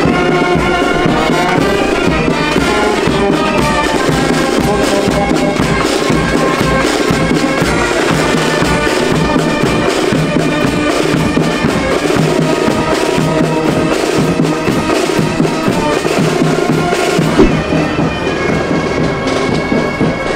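Marching band playing: wind instruments holding a tune over a steady drum beat.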